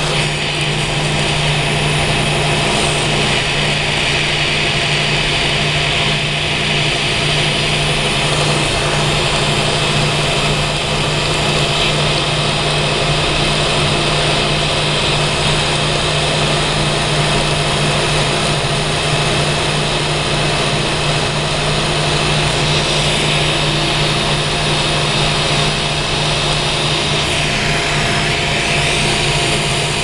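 Handheld gas torch burning steadily as it heats the copper-to-brass joint of a ball valve for sweat soldering, with a steady low hum underneath.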